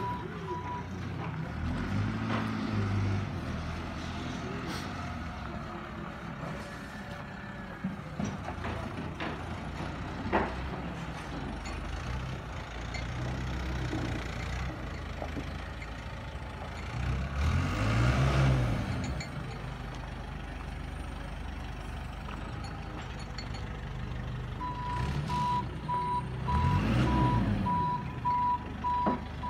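A heavy diesel construction vehicle runs, its engine revving up and back down twice. Near the end a reversing alarm beeps steadily.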